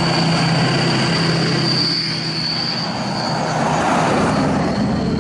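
Lifted pickup trucks on oversized wheels rolling slowly past in traffic, engines running steadily, with a thin high-pitched whine over them.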